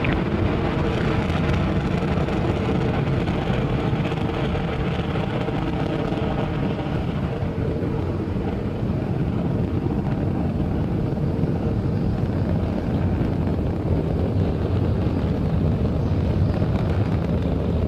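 Falcon 9 first stage's nine Merlin engines in a steady, loud rumble during ascent, shortly after liftoff. The hiss on top of the rumble fades after about seven seconds.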